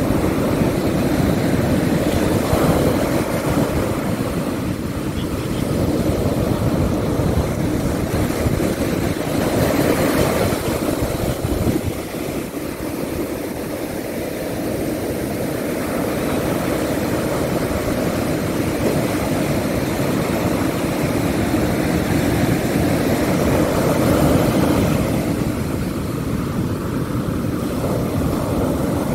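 Ocean surf breaking on a sandy beach: a steady loud rush with a low rumble of wind on the microphone, and a bigger wave crashing about ten seconds in.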